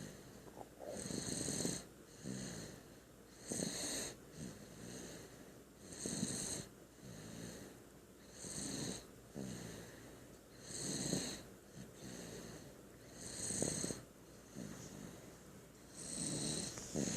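Steady, rhythmic snoring of a sleeper: a loud, rattly snore about every two and a half seconds, with softer breaths between.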